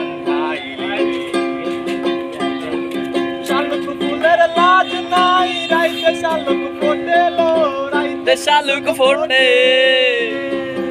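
Ukulele strummed in a steady rhythm, with a man singing along; the voice comes in a few seconds in and holds one long note near the end.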